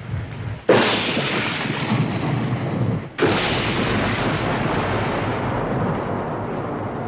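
Two sudden loud booms, the first under a second in and the second about three seconds in, each followed by a long rumble that slowly dies away.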